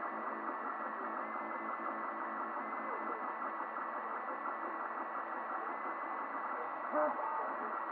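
3D printer running a print: its stepper motors whine in tones that shift and step in pitch as the print head moves, over the steady whir of the hotend cooling fan. A short, louder sound with a rising pitch comes about seven seconds in.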